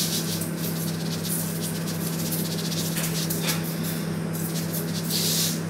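Salt being sprinkled from a container onto vegetables and grated coconut in a pressure cooker: a light rustling hiss of falling grains with faint ticks, and a brief louder hiss about five seconds in. A steady low hum runs underneath.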